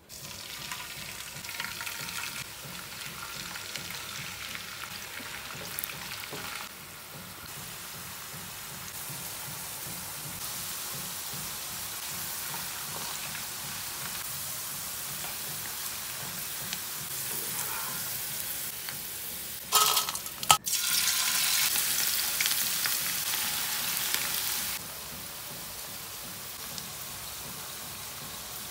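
Shredded potato sticks sizzling as they fry in oil in a nonstick frying pan, stirred with a spatula. A couple of sharp knocks come about two-thirds of the way in, after which the sizzle is louder for a few seconds.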